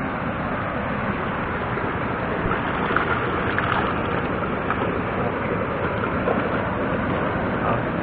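Steady rushing noise of mountain-stream water and strong wind buffeting the microphone.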